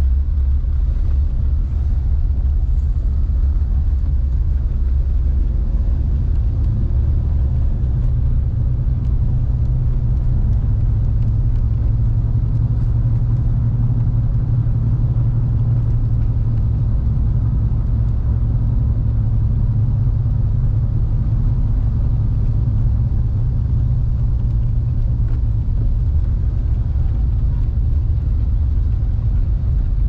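Steady low rumble of a car driving on a wet road, heard from inside the cabin.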